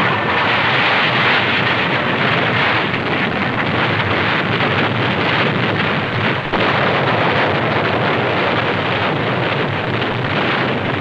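Continuous rumbling roar of a naval bombardment, a dense steady wash of noise in which no single shot stands out.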